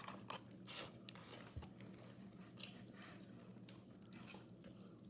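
Faint eating sounds: scattered small clicks and soft crunches of someone chewing poutine, over a steady low hum.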